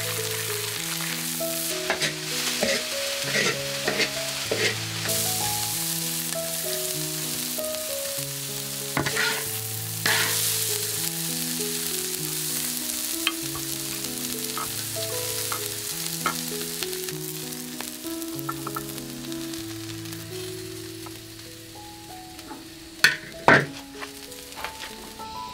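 Bean sprouts sizzling as they are stir-fried in a hot wok, with a metal spatula knocking and scraping against the wok. The sizzle dies down near the end, where a few sharp clicks stand out.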